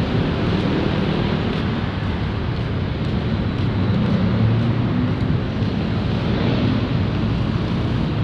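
Steady road traffic noise, a continuous low rumble of vehicle engines and tyres.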